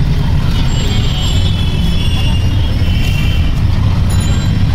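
Steady low rumble of road traffic and running engines, with faint voices and a few brief high tones in the middle.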